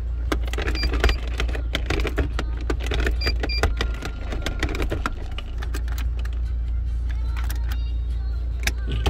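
SsangYong Musso Sports pickup idling with a steady low hum while the automatic gear selector is worked by hand. Its lever and detents click repeatedly for the first few seconds, with a few short high beeps among the clicks, and then only the idle remains.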